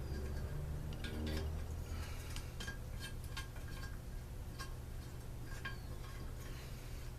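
Light, irregular clinks and taps of small metal parts and hand tools being handled while a leaf blower muffler is fitted, over a steady low hum.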